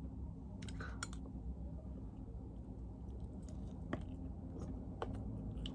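Faint eating sounds: a few small, sharp mouth clicks and taps over a low, steady room hum.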